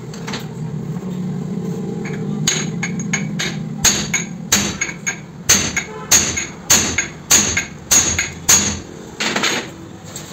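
Hammer striking metal at a bench vise during a wheel bearing replacement: a run of about ten sharp blows, roughly one every half second, each with a short metallic ring.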